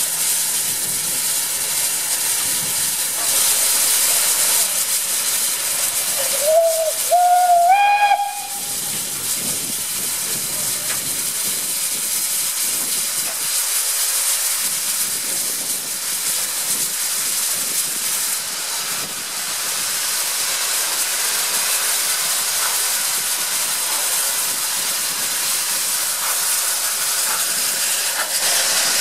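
Steam locomotive hissing steadily as steam blows off. About a quarter of the way in, its steam whistle sounds in three short notes, each a little higher than the last.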